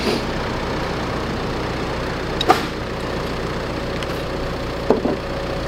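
A vehicle engine idling steadily, with a few short sharp knocks: one about halfway through and two close together near the end.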